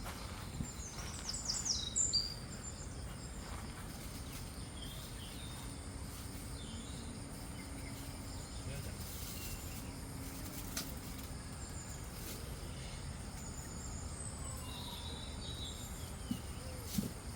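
Morning outdoor ambience: a steady background hiss, with birds chirping in a quick cluster about a second or two in and a few more times near the end, over a thin steady high insect tone.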